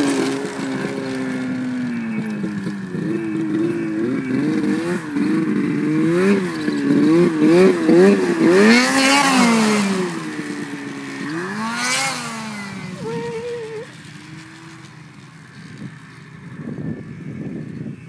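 Turbocharged Ski-Doo Summit 800 two-stroke snowmobile engine (Garrett ball-bearing turbo) revving hard, its pitch rising and falling again and again as it is ridden past and away. One last rev comes about twelve seconds in, and then the engine fades into the distance.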